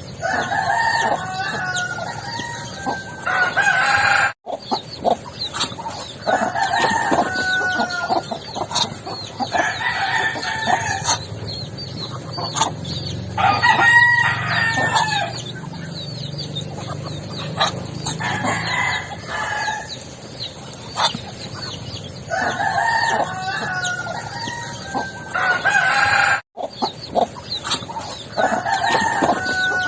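Backyard roosters crowing again and again, about seven long crows, with clucking and short chirps between them.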